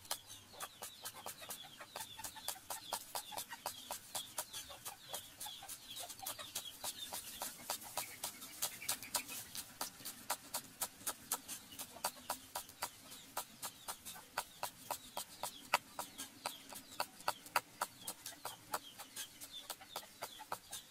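Cleaver chopping spring onions on a round wooden chopping board: a quick, steady run of sharp knocks, about four or five a second.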